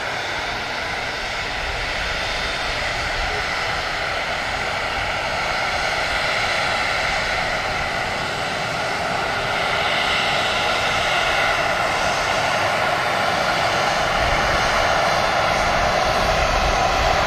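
Boeing 737-800 on final approach with gear down, its CFM56-7B turbofans sending out a steady whine and rushing noise that grows gradually louder as the jet comes closer.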